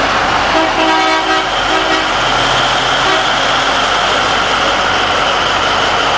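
Mining haul truck's heavy diesel engine running loudly as the truck drives past, a dense steady noise. In the first two seconds, a few short horn toots sound over it.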